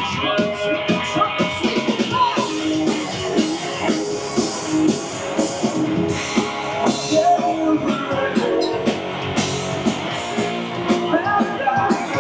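Live rock band playing at full volume: two electric guitars, electric bass and a drum kit keeping a steady beat.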